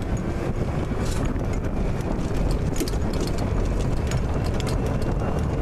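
Golf cart riding along with a steady low rumble, while the golf clubs in the bag beside the rider clatter and click with the bumps.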